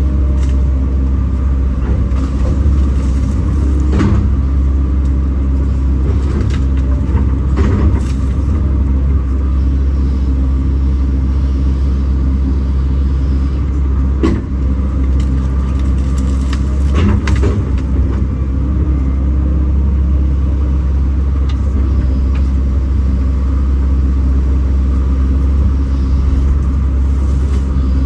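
Kobelco SK210 excavator's diesel engine running steadily under a low drone, with a few short knocks and clunks from the machine at work.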